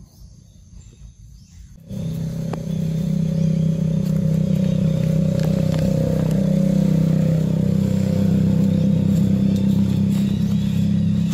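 A motor engine running at a steady hum, starting abruptly about two seconds in and holding steady.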